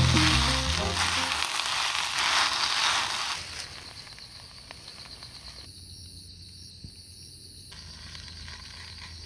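Luncheon-meat fried rice sizzling in a cast-iron Dutch oven: loud for the first three seconds or so, then dropping to a quieter hiss. Background music fades out in the first second and a half.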